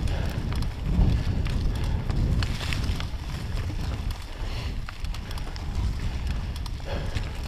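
Mountain bike rolling along a leaf-covered dirt singletrack: the tyres crunch over dry leaves and the bike rattles with scattered clicks, over a steady low rumble of wind on the handlebar microphone.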